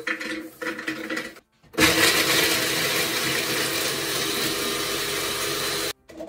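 Toasted walnuts clatter off a baking tray into a food processor bowl. About two seconds in, the food processor starts and runs steadily for about four seconds, chopping the walnuts, then cuts off suddenly.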